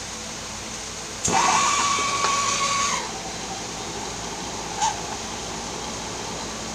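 Hand-held hot-air blower running with a steady hiss. About a second in it rushes louder with a thin whistle for nearly two seconds, then settles back, and there is a short whistle near five seconds.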